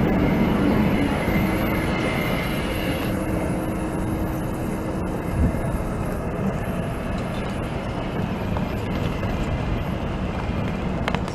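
Translohr rubber-tyred tram moving past close by, its electric drive and tyres giving a steady running noise with a faint high whine, easing off over the first couple of seconds. A quieter steady vehicle noise follows as a tram comes in slowly, with a single thump about five seconds in.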